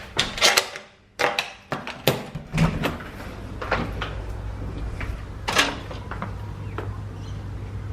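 Scattered light clicks and knocks from things being handled, over a steady low hum that cuts out briefly about a second in and then resumes.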